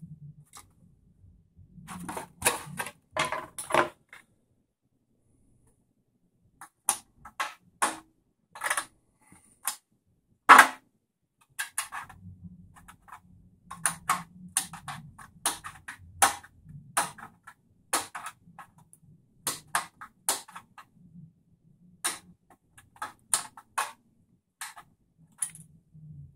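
Scissors snipping a clear polycarbonate RC car body shell: a series of short, sharp cuts in irregular runs with pauses between them, the loudest about ten seconds in.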